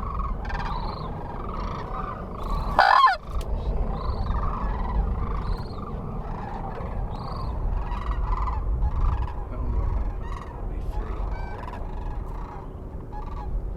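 A flock of geese calling, many short overlapping honks, with one louder call about three seconds in, over a steady low rumble.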